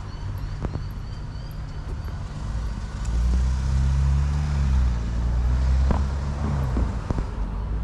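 A motor vehicle passing close by. Its engine hum swells from about three seconds in and fades away near seven seconds, over a steady low traffic rumble.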